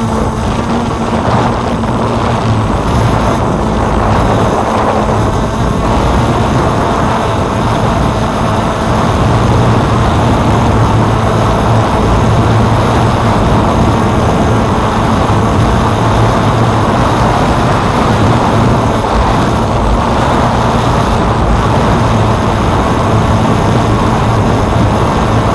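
DJI F550 hexacopter's six electric motors and propellers buzzing steadily in flight, a little louder about a third of the way in.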